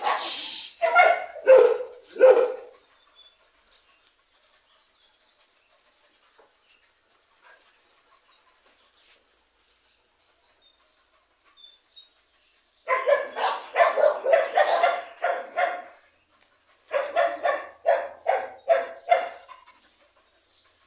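Dog barking in quick volleys: a few barks near the start, then after a long lull two bouts of rapid, repeated barking, each a few seconds long.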